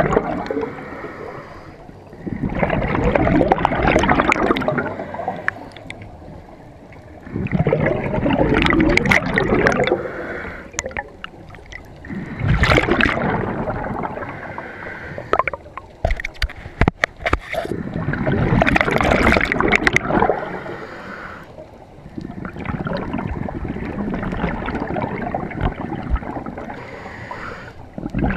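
Scuba diver breathing through a regulator underwater: gurgling surges of exhaled bubbles every few seconds, with quieter stretches between breaths. A run of sharp clicks comes about halfway through.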